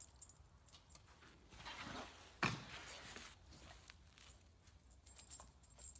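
A dog hopping about in light snow and snapping at falling flakes: faint scuffs of its paws and light jingling, with one louder sudden noise about two and a half seconds in.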